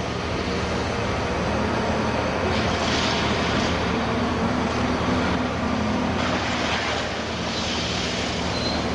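Diesel engines of scrap-handling machines running steadily, with a few short bursts of higher hiss over the engine note.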